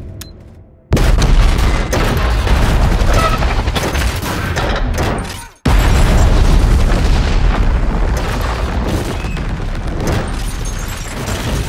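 Two huge explosions, set off by remote detonator. The first bursts in about a second in and fades over several seconds; the second hits just before the halfway mark, followed by a long, loud tail of blast and debris.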